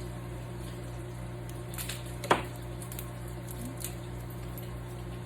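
An onion being handled and cut on a cutting board: quiet squishy handling with a few faint clicks, and one sharp knock on the board a little over two seconds in. A steady low hum runs underneath.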